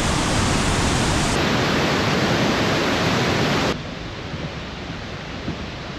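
Large waterfall rushing: a steady, dense noise of falling water that drops suddenly to a quieter level a little past halfway through.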